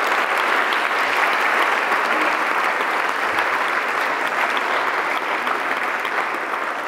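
Audience applauding, a dense patter of clapping that slowly dies away over the last few seconds.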